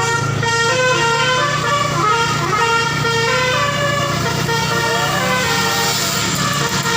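Basuri telolet bus horn, a multi-tone musical horn, playing a quick tune of stepped notes over a steady low hum.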